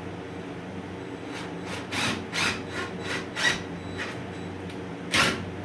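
Wooden table saw stand frame scraping and shifting on the shop floor: a run of about six short rubbing scrapes, then one louder scrape near the end, over a steady low hum. It is moving around because the floor is not level.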